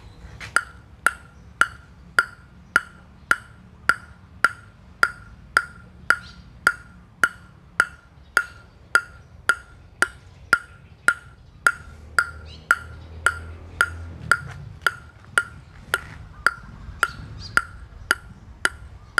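A celluloid-type ping-pong ball bounced steadily on the bare limba face of a DHS Hurricane Long V Provincial blade (limba outer plies, ALC carbon inner layer), about two bounces a second, each a sharp wooden tock with a brief ringing note at the same pitch. It is a bounce test of how the blade sounds and vibrates.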